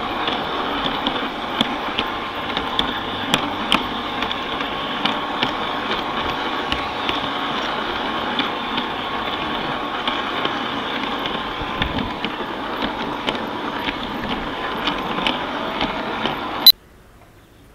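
Garden-scale model train running along its track, heard from aboard: a steady rattling rumble of wheels on rail, with frequent irregular clicks and a faint steady whine. It cuts off suddenly with a sharp click about a second before the end, leaving only faint background.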